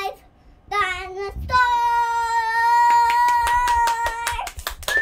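A young girl's freestyle singing: two short notes, then one long held note for about three seconds. About halfway through, fast sharp claps start, about five a second, over the held note and after it.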